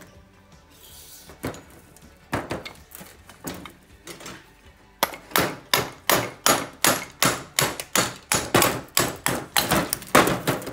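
Metal knocking on an outboard powerhead, at first a few scattered knocks, then about halfway through a fast, even run of sharp knocks, about three a second. The knocks are working a piston free that is stuck in the water-rusted bottom cylinder of the two-stroke block.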